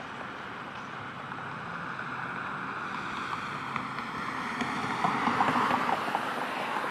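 Steady outdoor rushing noise that swells about five seconds in, with a few faint clicks.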